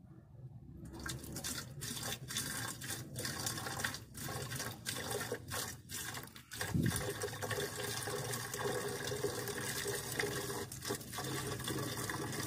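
Water poured in a steady stream from a plastic jug into a car's windshield-washer reservoir through its filler neck, starting about a second in, as the patched reservoir is filled to test it for leaks.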